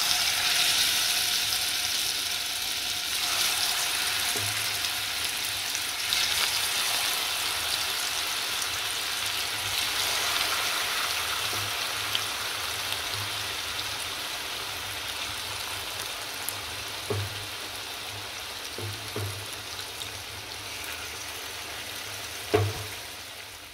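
Pieces of spice-marinated chicken frying in hot oil in a pan: a loud, dense sizzle that starts suddenly as they go in and slowly eases off. A few short knocks come in the second half, as the pieces are turned.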